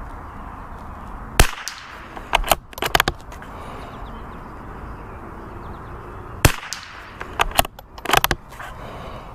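Two .22 rimfire rifle shots about five seconds apart, fired at a rack of hanging steel plates. Each sharp crack is followed a second or so later by a quick run of lighter clicks.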